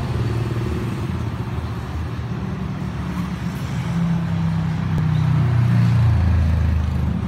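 A low motor hum whose pitch sinks a little and grows slightly louder about five to six seconds in.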